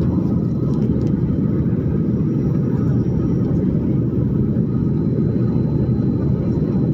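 Steady low roar of an airliner cabin in flight: engine and airflow noise heard from inside the passenger cabin.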